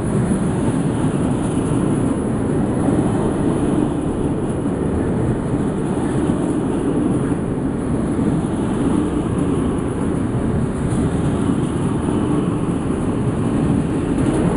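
Freight train of covered goods wagons rolling past close by: a steady, loud noise of steel wheels on the rails.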